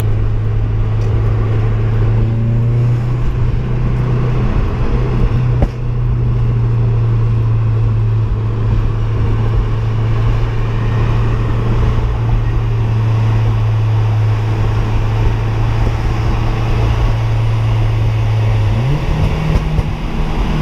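Car engine running with a steady low drone at constant revs, then picking up revs near the end as its note rises.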